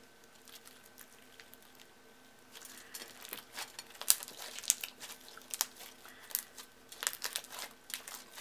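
Thick clear slime with small beads mixed in, being stretched, folded and squeezed by hand: a rapid run of sticky clicks and crackles that starts about two and a half seconds in, with only faint clicks before that over a faint steady hum.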